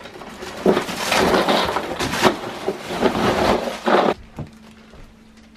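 Crinkling plastic and crunching, rattling ice as bagged ice is emptied into a plastic cooler; it stops about four seconds in.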